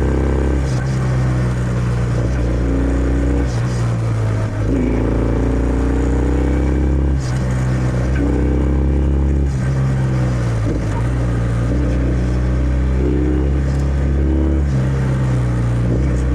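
Kawasaki W650's air-cooled parallel-twin engine through its stock exhaust, pulling under way. The pitch rises as it accelerates and drops back several times at gear changes or when the throttle closes.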